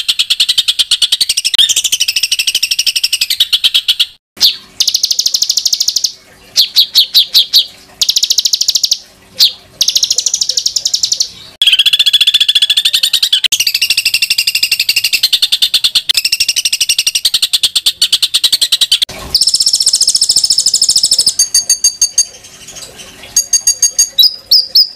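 Recorded songbird song for tutoring competition birds: a mix of harsh, high trills and rapid repeated notes fired in quick bursts, the 'tembakan kasar' (rough shots) of Indonesian masteran. Long unbroken trills alternate with stuttering series of sharp notes, with a fast rattling run of notes near the end.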